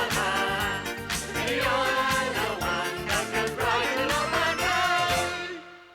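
Children's television theme song: singers over an upbeat backing band finishing the final line, then the music fades out near the end.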